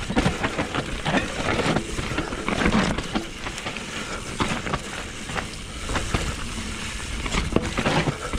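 Mountain bike descending a forest singletrack: tyres rolling over damp dirt and wet roots, the bike rattling and knocking over the bumps, with wind rumbling on the microphone.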